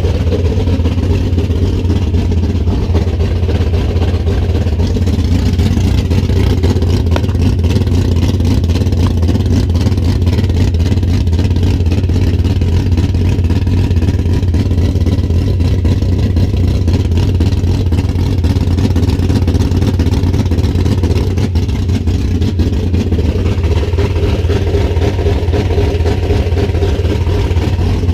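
Chrysler 340 small-block V8 in a 1973 Plymouth Duster, running steadily just after being reassembled with resurfaced cylinder heads to cure coolant getting into a cylinder.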